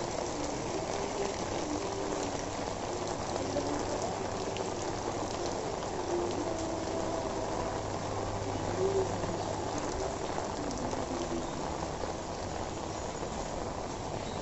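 Steady rain falling on a wet paved lane and the buildings around it, an even hiss of water, with faint wavering tones and a low hum in the background.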